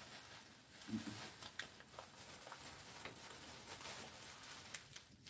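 Faint rustling and light ticking of vinyl-gloved hands rolling gimbap in a bamboo mat.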